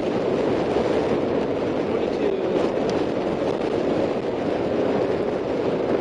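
Steady rushing wind and tyre rumble from riding a bicycle along a paved street, with no breaks or distinct events.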